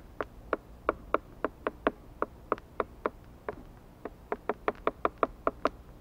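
Kitchen knife chopping boiled egg on a plastic cutting board: quick sharp knocks of the blade striking the board, about three to four a second, with a brief pause about halfway through.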